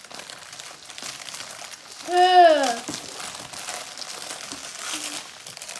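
Crinkling of plastic wrapping as items are handled and unwrapped. About two seconds in, a child gives one short vocal 'ooh' that falls in pitch.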